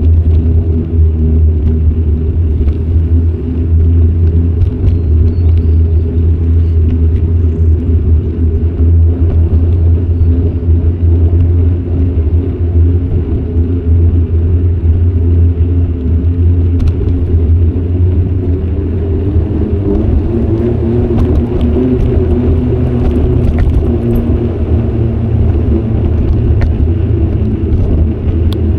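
Steady low rumble of riding a bicycle on asphalt, picked up by an action camera's microphone: wind buffeting the mic mixed with tyre noise on the road surface.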